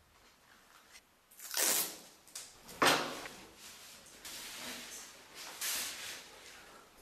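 Rustling handling noises in several bursts, with a sharp knock near three seconds in.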